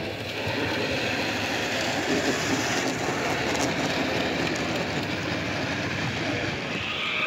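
Model steam locomotive pulling a freight train close past, its wheels and wagons rolling over the model track with a steady rumble and light clicking.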